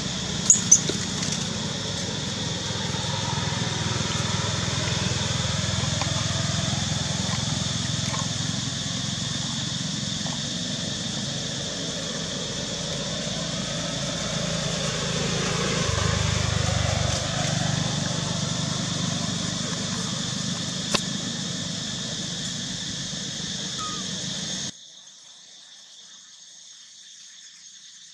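Steady outdoor background: a continuous high-pitched drone over a low rumble, with a couple of faint clicks; it drops away abruptly about 25 seconds in.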